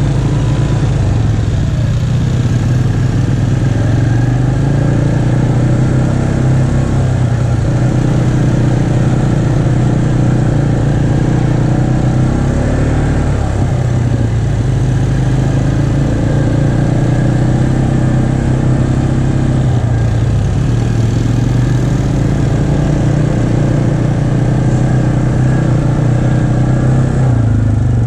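Single-cylinder four-stroke ATV engine running steadily under throttle on a dirt trail. Its pitch dips briefly a few times as the throttle eases.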